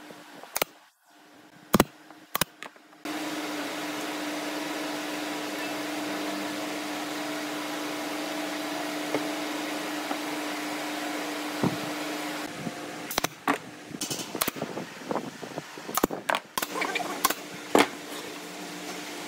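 A few sharp clicks, then a handheld power tool's electric motor runs steadily with a constant hum for about nine seconds and stops abruptly, followed by irregular knocks and taps of wood being handled.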